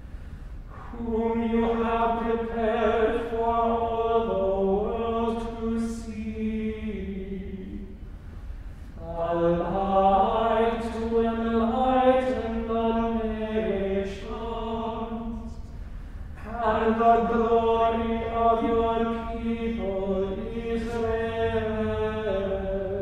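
A small group of men's voices chanting together unaccompanied, in three long phrases with short breath pauses between them.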